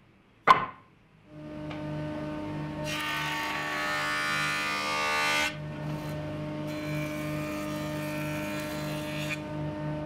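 A sharp knock about half a second in, then a jointer running steadily, with two passes of an ash board across its cutterhead: a loud cutting hiss from about three to five and a half seconds and again from about seven to nine seconds.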